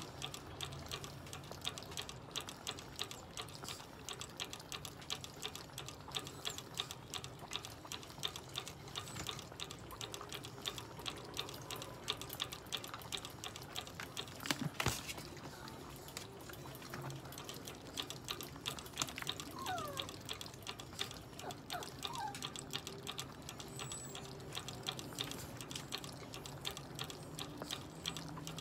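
Chihuahua drinking from a hanging water bottle, licking the ball-valve nozzle in a rapid run of small wet clicks and ticks, with a single louder knock about halfway through.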